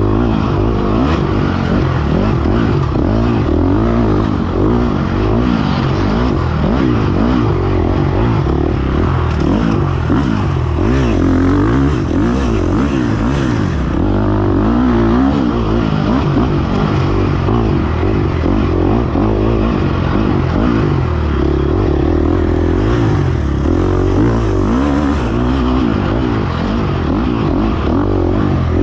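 Dirt bike engine revving hard and continuously under the rider's throttle, its pitch constantly rising and falling as it is ridden along a rough woods trail.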